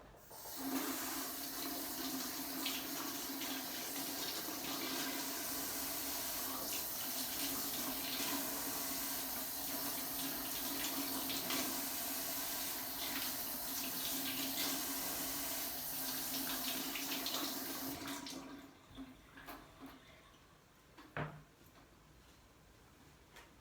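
Water tap running into a sink, with a steady low hum under the rushing and splashing, turned off after about eighteen seconds; a few light knocks follow.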